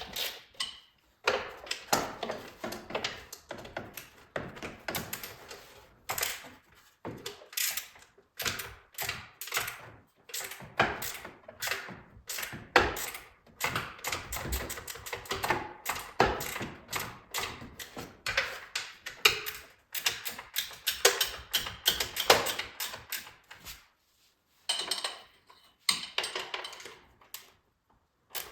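Ratchet wrench clicking in quick runs as bolts are backed out, with short pauses between runs.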